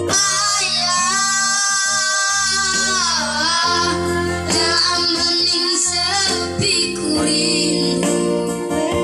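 Boys' voices singing into a microphone over an electronic keyboard accompaniment, holding long notes, with one sliding down in pitch about three seconds in.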